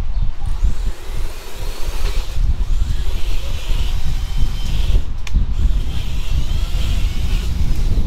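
Wind buffeting the microphone in an uneven, gusting rumble. A fainter hiss with wavering whines rises over it through the middle, and there is a sharp snap about five seconds in.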